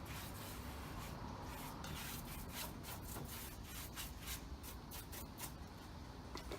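Short, irregular rubbing strokes against a surface, coming faster in the second half, over a low steady hum.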